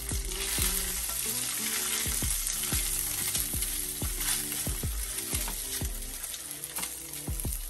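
Imitation crab meat sizzling as it sautés in a hot cast iron pan, with background music with a steady beat underneath.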